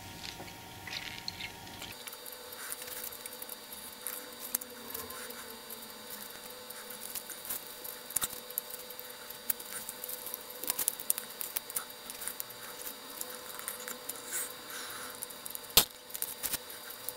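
Faint clicks and rustles of small plastic model locomotive tender parts being handled and fitted together, with one sharper click near the end.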